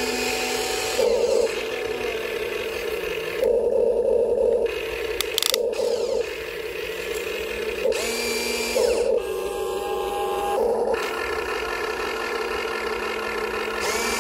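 Motors of a radio-controlled excavator whining as it works. The pitch slides up and down, with several brief louder surges.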